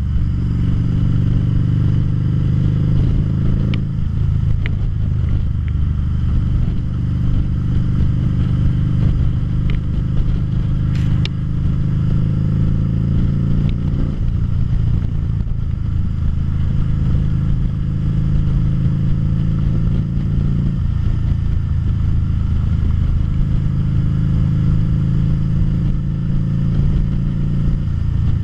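2013 Harley-Davidson V-Rod Muscle's liquid-cooled V-twin engine running under way at road speed, recorded from the bike. The engine note changes pitch a few times as the ride goes on.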